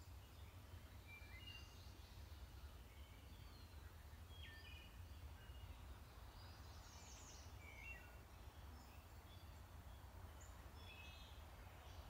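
Faint, scattered short bird chirps and calls over a low steady hum.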